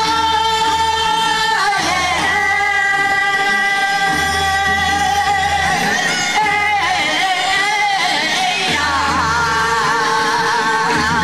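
Group of singers performing a Korean folk song (minyo) through microphones, with long held notes that waver more in the last few seconds, over a steady low backing accompaniment.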